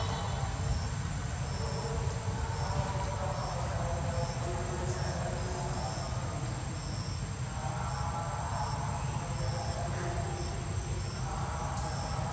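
Forest insects calling: a steady high-pitched whine with short, high chirps repeating irregularly about once or twice a second, over a low rumble.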